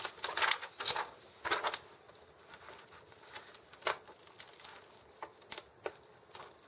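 Clear plastic film sheet rustling and crinkling as it is laid over the cardboard box window and pressed down, with a few short rustles in the first two seconds, a sharp click about four seconds in, then light taps.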